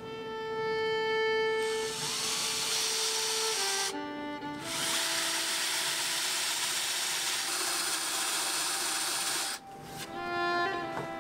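Power drill with a spade bit boring through a wooden board, running in two long spells with a short break about four seconds in. Violin-led background music plays throughout.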